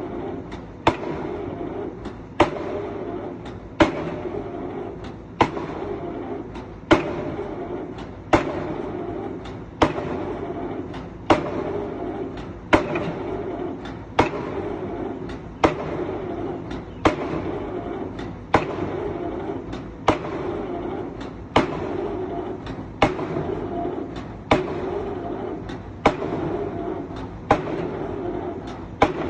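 Excavator-mounted drop hammer striking over and over at a steady pace, about one blow every second and a half, with a lighter click just before each blow. The excavator's engine runs steadily between the blows.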